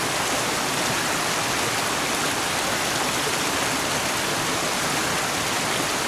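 Shallow rocky stream rushing over boulders: a steady, even rush of running water.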